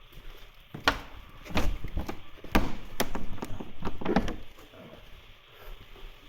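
A run of about six sharp knocks and thuds over three seconds, unevenly spaced, then quieter.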